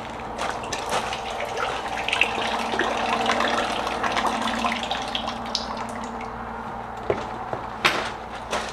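Water running and splashing from the drinker nipples of a homemade hog waterer as they are tested, with two sharp knocks near the end.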